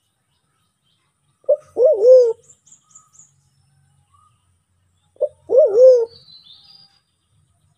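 White-faced cuckoo-dove (Turacoena manadensis) calling twice, about four seconds apart. Each call is a short note followed by a longer wavering coo. Faint high chirps of small birds come after each call.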